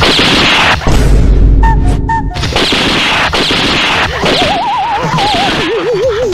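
Action-film fight sound effects: a run of loud hits and crashes, with a heavy low boom about a second in. Near the end come two warbling tones that wobble up and down, the second lower than the first.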